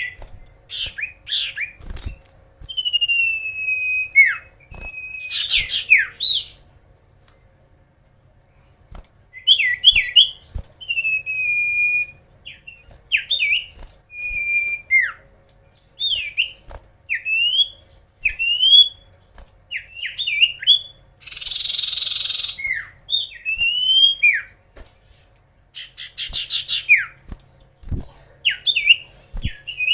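Common iora (cipoh) singing: a run of clear whistled notes that slide up and down, some drawn out, with a short pause partway through and a harsh rasping call at about two-thirds of the way.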